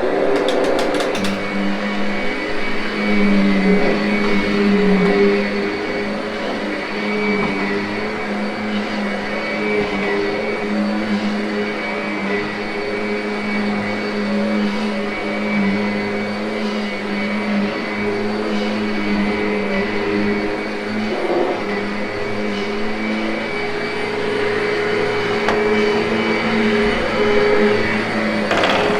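Kirby upright vacuum cleaner running steadily with a high motor whine, coming up to speed at the start, as it post-vacuums and grooms a carpet.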